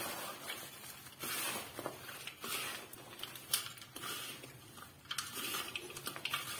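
Hands rubbing and tossing a dry, crumbly laddu mixture of oil-roasted flour, jaggery and dry ginger in a plate: repeated gritty rustling swishes, about one a second.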